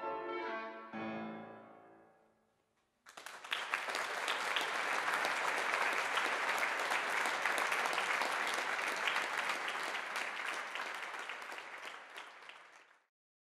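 The last notes of a classical piece end on a chord that fades away. About three seconds in, an audience starts applauding, and the clapping cuts off suddenly near the end.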